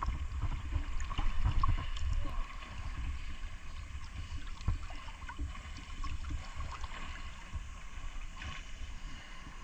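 Seawater sloshing and gurgling around the camera while swimming, with a low rumble and many small irregular knocks.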